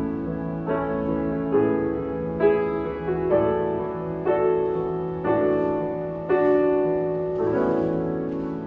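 Blüthner grand piano playing a slow ballad: chords struck about once a second, the last one held and left to ring and fade near the end.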